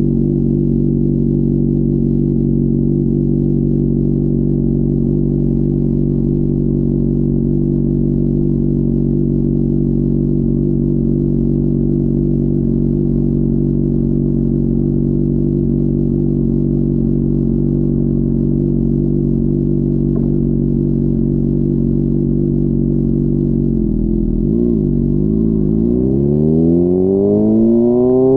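Honda CBR600RR's inline-four engine idling steadily at low revs. About 24 seconds in, the revs dip and waver, then climb steadily near the end as the bike accelerates away.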